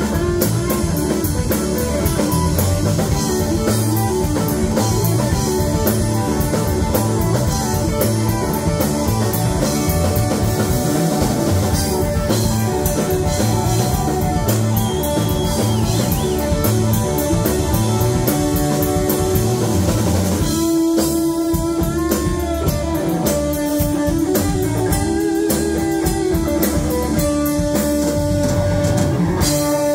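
Live rock band playing with electric guitars, bass guitar and drum kit. About twenty seconds in the playing thins and long held notes stand out.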